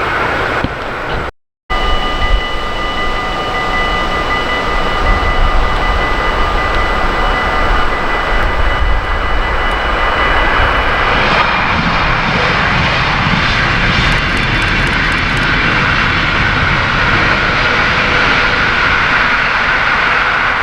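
Train running by: a steady, loud rumble and rush with wind noise on the microphone. Faint steady whining tones run through the first half. The sound cuts out briefly about one and a half seconds in.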